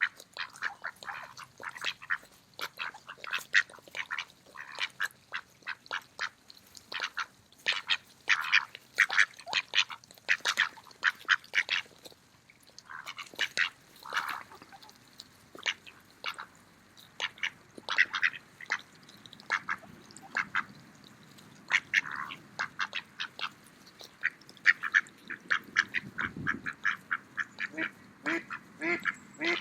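Mallard ducks quacking while they feed, in quick runs of short, clipped calls with brief pauses between runs. A few fuller quacks come near the end.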